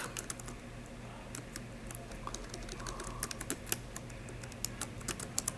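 Computer keyboard being typed on: irregular keystroke clicks, with a quicker run of keystrokes near the end.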